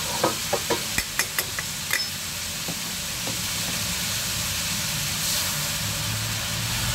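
Pork liver sizzling in hot oil in a wok, a steady hiss, with a row of light clicks in the first two seconds. The sizzle brightens briefly about five seconds in.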